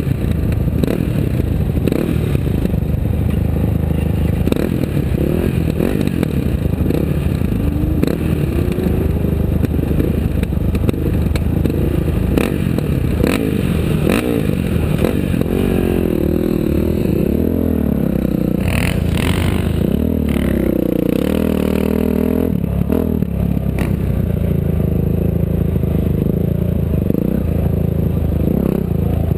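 A vehicle engine running on rough ground with steady rattling and clatter. Its pitch rises and falls in the middle of the stretch.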